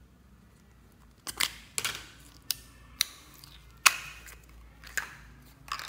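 Thin plastic slime tub crackling and clicking as it is squeezed and the slime is pried out of it: a run of sharp, irregular clicks starting about a second in, the loudest near the middle.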